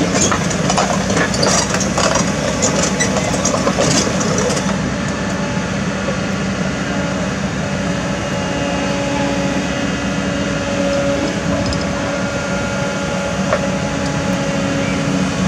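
Kobelco SK200 hydraulic excavator's diesel engine running steadily, with a scattered crackle in the first few seconds.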